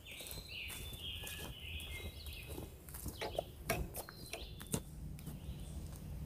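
Footsteps crunching on a dirt and leaf-litter forest trail, a few sharp steps standing out between about three and five seconds in. Birds sing high-pitched phrases over the first half, over a low rumble.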